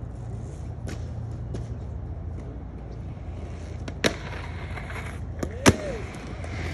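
Skateboard on concrete: a sharp clack about four seconds in, then a louder clack of the board landing just before six seconds, over a low steady rumble.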